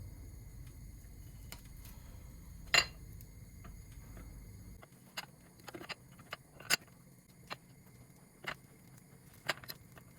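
Light clicks and clinks of dishes and utensils being handled, over a low steady hum that stops about five seconds in.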